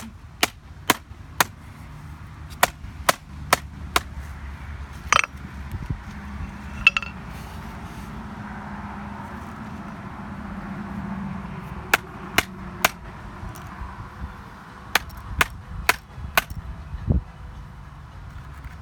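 Repeated sharp blows striking an old iBook clamshell laptop, in quick runs of three or four about half a second apart. There is a pause of several seconds in the middle, then two more runs.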